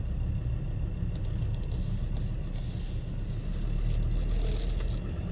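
Vehicle running at low speed, a steady low engine and road rumble heard from inside the cab, with a brief hiss a little past halfway.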